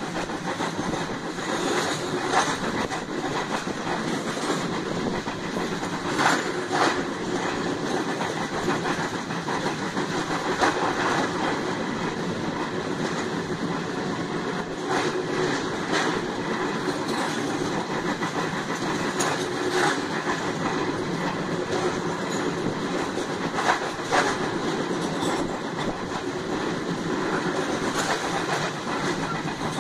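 Passenger train running steadily on a steel truss bridge, heard from an open carriage window: a continuous rumble of wheels on rail with scattered sharp clacks from the rail joints.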